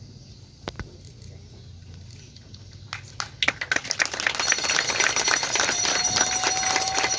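Spectators clapping: a few scattered claps, then applause building up about three and a half seconds in, with a steady whistle over it in the last seconds.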